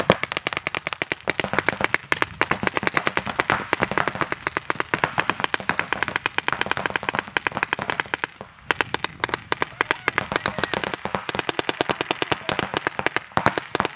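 Paintball markers firing rapid strings of shots, many per second, with brief lulls about four and eight and a half seconds in.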